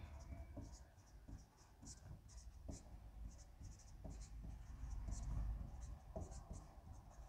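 Marker pen squeaking faintly on a whiteboard in a run of short, quick strokes as words are written.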